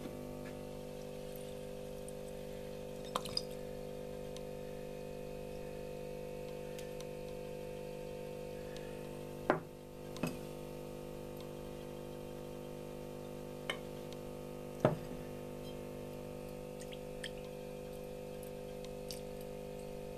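Steady hum of a vacuum pump drawing through a side-arm filter flask, with a few light clinks of glass flasks set down on a wooden table.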